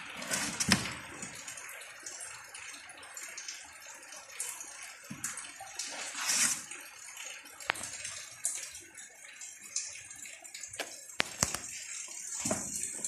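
Kittens scrambling and pawing on a cardboard box: irregular scratchy rustles and sharp taps, with louder scuffles about a second in and around six seconds in.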